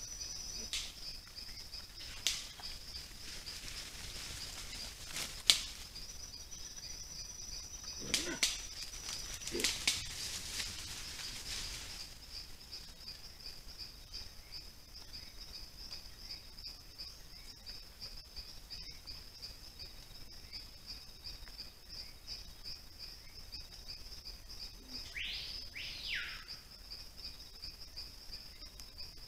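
A steady, fast-pulsing insect trill runs throughout. Over the first ten seconds or so there are sharp clicks and knocks and rustling in leaf litter as a herd of white-lipped peccaries moves off. Near the end come two quick falling whistle-like bird calls.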